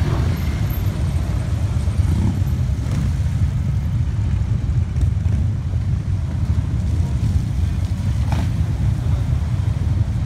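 Harley-Davidson V-twin motorcycles rumbling past at parade pace, a steady low engine drone with no breaks.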